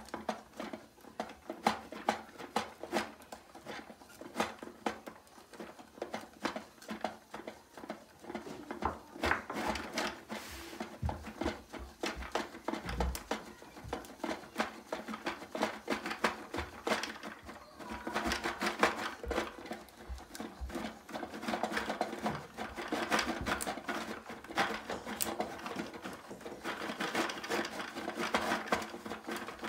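Plastic toy slime-maker being worked by hand, its mixing cup turned round and round so the plastic mechanism clicks and rattles in a quick, uneven run as the slime is stirred.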